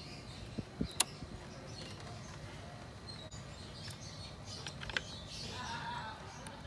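A plastic wiring connector clicking into place with a sharp snap about a second in, followed by a few light clicks of handling connectors and hoses. Birds chirp faintly near the end.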